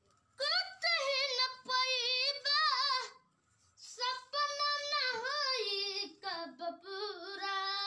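A young boy singing unaccompanied in a high voice, the pitch wavering and bending through ornamented lines, in two long phrases with a short break about three seconds in.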